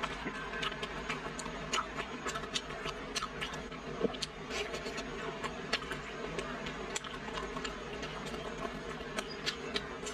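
Close-miked chewing of crispy fried five-spice rolls wrapped in bean-curd skin: many small irregular crackles and wet mouth clicks over a steady low hum.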